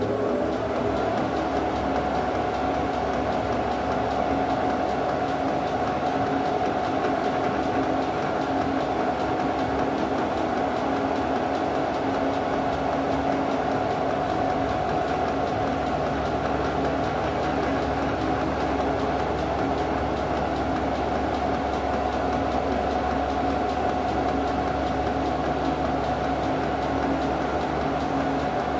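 A machine tool's spindle motor whines up to speed in the first moment, then runs steadily with a constant high whine while a centre drill cuts into a metal workpiece.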